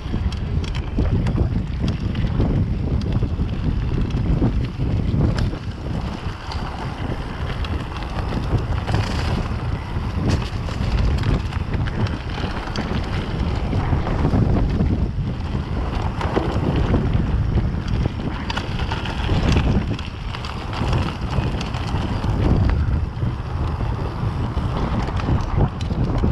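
Mountain bike riding over an off-road grass and dirt trail: tyres rumbling and the bike rattling and knocking over bumps, under steady wind noise on the microphone.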